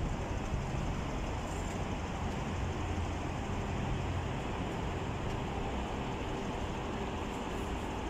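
Steady low rumble of city traffic, a little stronger in the first half.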